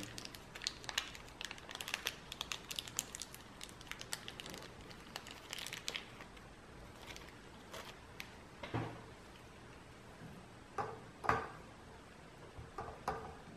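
Faint crinkling and clicking of a small plastic grease sachet being opened in latex-gloved hands, followed by a few soft knocks of handling.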